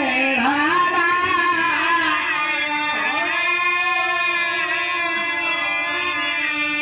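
Birha folk song sung by a male singer through a PA system with instrumental accompaniment: a sliding, ornamented phrase, then one long held note.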